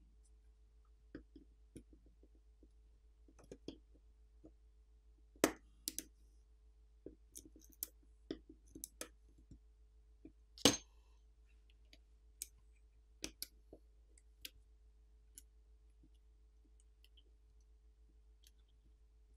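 Scattered light clicks and taps of tweezers and a small metal pry tool on a smartphone's main board as coaxial antenna cable connectors are popped off. The two loudest clicks come about five and a half and ten and a half seconds in.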